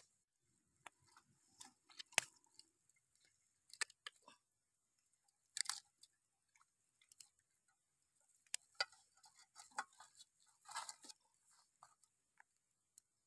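Faint, scattered wet clicks and squishes of bare hands working a raw plucked goose against lemongrass stalks in a pot.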